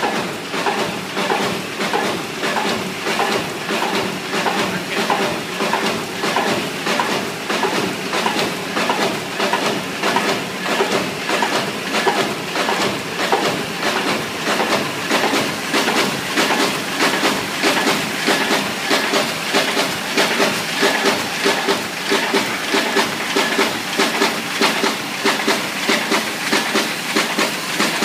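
Paper creasing and folding line running: an R50/14 creasing machine fed by a Baumfolder high-pile feeder passes sheets straight into a Heidelberg Ti 56 folder. Its strokes make an even, rapid clatter over a steady hiss.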